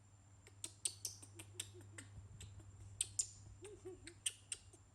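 Baby monkey giving a few faint, short cries among scattered sharp clicks and taps.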